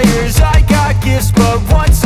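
Upbeat music with a steady drum beat, short repeated melody notes and a constant bass line.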